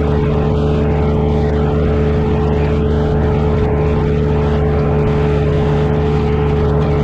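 Engine of a compact earthmoving machine running at a steady speed, an even drone that holds its pitch throughout.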